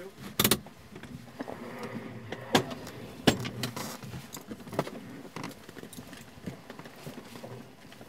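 Sharp clicks and knocks with light rustling, from gear and controls being handled inside a small plane's cabin with the engine stopped. A double knock comes about half a second in, and single clicks follow at intervals of a second or so.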